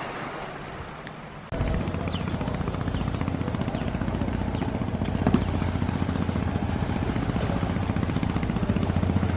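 An engine running steadily with a fast, even pulsing beat, starting abruptly about a second and a half in after quieter outdoor noise.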